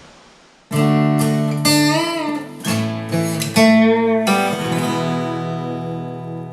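Outro music on acoustic guitar: a short strummed and plucked phrase starts about a second in, with a bent note near the middle, and ends on a chord that rings on and slowly fades.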